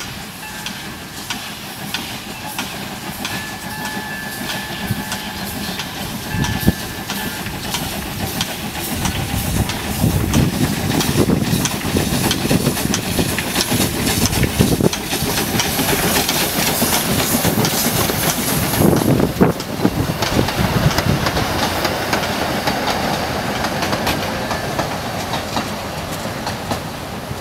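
Narrow-gauge Baldwin 4-6-0 tank steam locomotive No. 778 working a train of coaches past, with regular exhaust beats and wheels clicking over the rail joints, getting louder about a third of the way in. A stretch of steam hiss comes near the middle as it passes.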